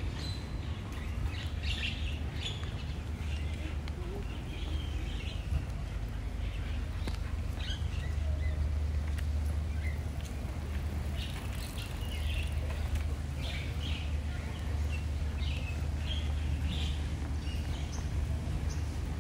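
Birds chirping and calling in short, scattered notes throughout, over a steady low rumble.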